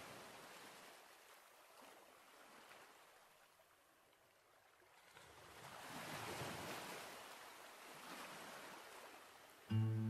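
Ocean waves washing in, swelling and ebbing twice as the surf rolls in. Music enters abruptly near the end and is louder than the surf.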